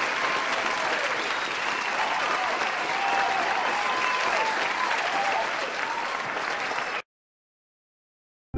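A crowd applauding and cheering, which cuts off abruptly near the end.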